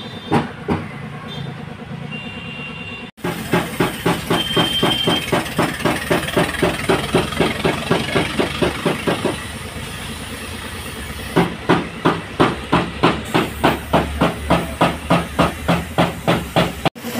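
Air-fed paint spray gun hissing while car body paint is sprayed, over a rhythmic machine pulsing of about three to four beats a second that starts abruptly about three seconds in.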